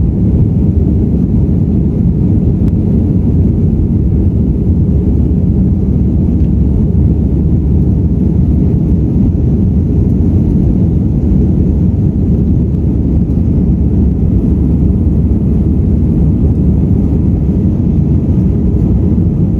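Cabin noise inside an Airbus A320 climbing out after takeoff: a loud, steady, deep rumble of engines and airflow that holds level throughout.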